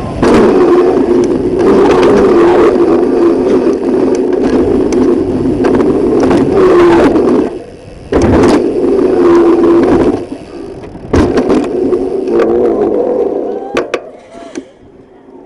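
Loud rushing wind noise and rattle from a camera riding on a mountain bike during a fast descent on paved streets. It dips briefly twice and fades out near the end as the bike slows.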